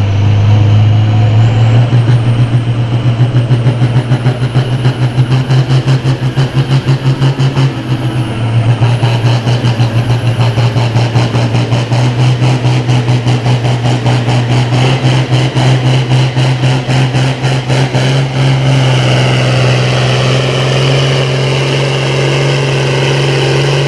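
Farm tractor engine working hard under full load as it pulls the sled, a loud steady drone that throbs rhythmically for most of the run and then evens out near the end.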